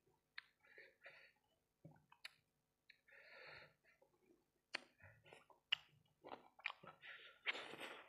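Close-miked chewing of fried rice-ball skewers in sauce: irregular mouth clicks and smacks, sparse at first and more frequent in the second half.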